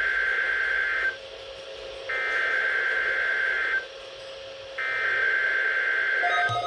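NOAA Weather Radio's digital SAME alert header, sent three times: three bursts of data tones about a second and a half each, with about a second's pause between them, opening a Required Weekly Test. Near the end a different set of steady electronic tones begins.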